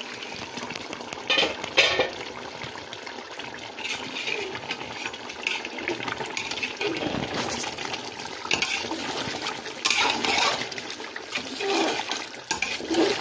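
Chicken and potato curry simmering and bubbling in a large metal pot, a steady watery bubbling, with a few sharp clanks of the metal lid and pot.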